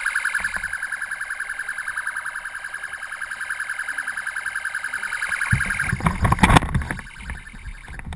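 An electronic siren tone at a steady pitch, pulsing rapidly many times a second. It cuts off about five and a half seconds in, and loud rumbling noise with sharp knocks takes over.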